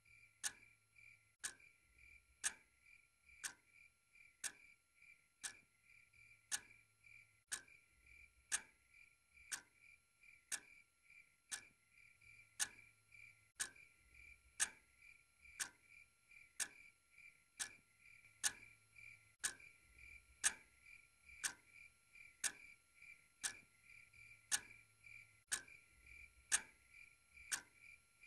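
A clock ticking steadily and quietly, about once a second, over a faint steady hum.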